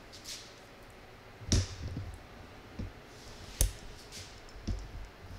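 A few scattered knocks and clicks of handling: about four sudden taps and thumps over a quiet room background, the loudest a thump about a second and a half in and a sharp click near the middle.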